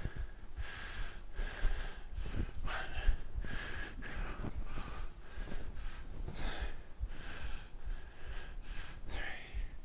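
A man breathing hard in and out, short forceful breaths about once a second, from the effort of single-leg pistol squats.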